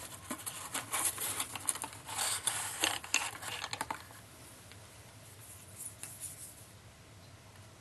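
Handling noise from a box of .50 BMG cartridges: rapid rustling, scraping and clicking for about four seconds, then only a few faint ticks.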